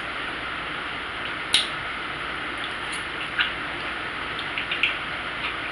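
Eating sounds: a few short, wet mouth clicks and smacks while chewing, the sharpest about one and a half seconds in, over a steady hiss.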